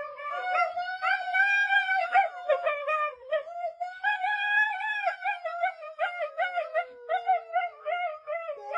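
A dog howling and 'talking': long wavering howls broken by quick, choppy yodel-like notes, with a thinner howl sliding slowly lower in the last few seconds.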